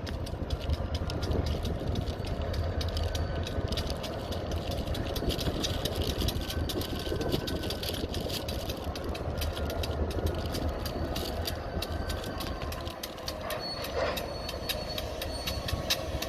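High-hood GP diesel-electric locomotive working while switching freight cars: a steady low engine rumble with a thin turbocharger whine over it, and many sharp clicks and clanks from the moving train.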